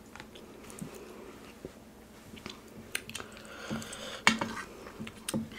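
Quiet chewing of food, with a few sharp clicks of dishes and cutlery in the second half.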